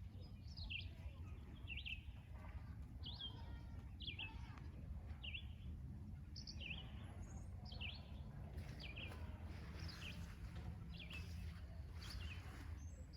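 A bird chirping over and over, short sharp sweeping calls about once a second, over a faint steady low rumble.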